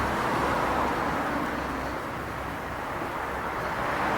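Steady background noise with no distinct events, dipping slightly midway.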